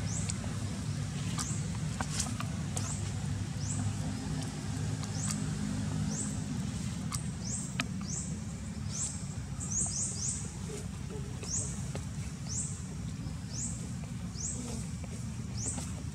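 Short, high, rising chirps repeating about one to two times a second, coming thickest around the middle, over a steady low rumble.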